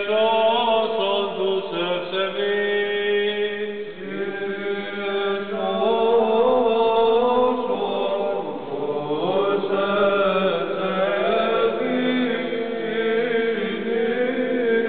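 Liturgical chanting by several voices: a low note held as a drone under a slowly moving melody line.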